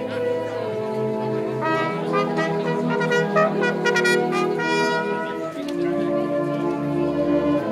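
Wind band of brass and clarinets playing slow, held chords, the notes changing every second or two.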